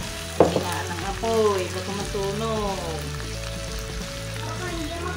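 Food frying and sizzling in a pan as it is stirred, with a sharp knock about half a second in.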